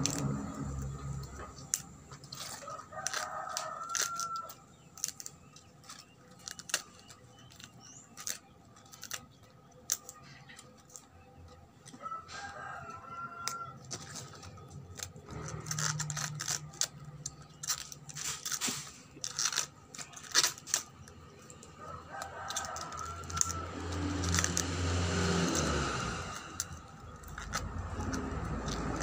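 A rooster crowing about three times, under a run of sharp clicks and rustles from hands working food in a plastic basket.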